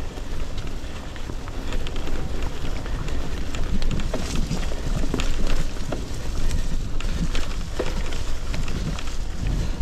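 Mountain bike ridden along a muddy dirt trail: wind buffeting the microphone over the tyres' rolling noise, with frequent clicks and rattles from the bike over bumps.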